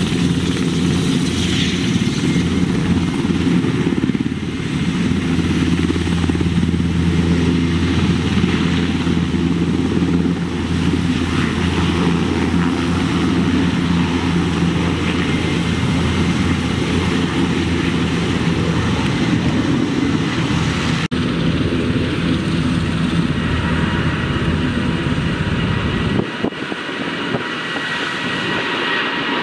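Large helicopter running close by, a steady drone of rotor and turbines while it hovers. A few seconds before the end the sound switches abruptly to an ANA Boeing 787 jet airliner climbing out after takeoff, its engines giving a high, steady whine.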